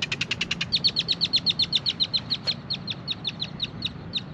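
A bird calling a long, rapid series of short, sharp, high notes, about eight a second, growing fainter near the end.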